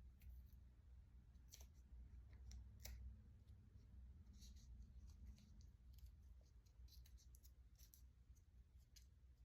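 Faint clicks and crinkles of masking tape being handled and pressed onto the edges of a razor blade, a few sharper ticks among them, over a steady low hum.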